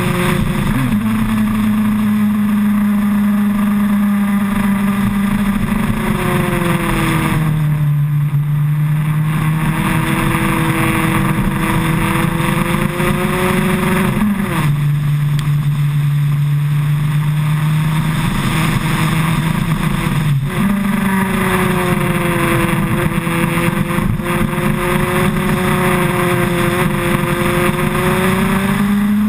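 The 2008 Suzuki Hayabusa's inline-four engine runs steadily as heard from the bike itself, over a constant rush of noise. The engine note falls and rises a few times as the throttle and revs change through the bends.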